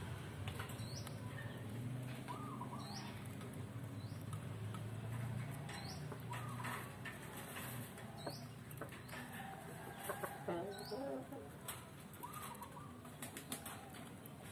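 Young chicken pecking rice grains off a concrete floor, its beak tapping in quick, irregular clicks, with a few soft chicken calls between.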